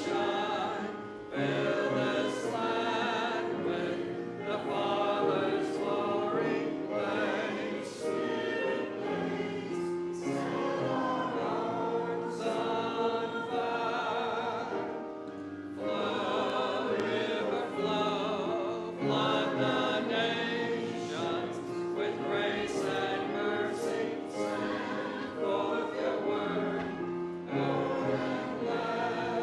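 Many voices singing a hymn together, with held notes that change pitch from phrase to phrase.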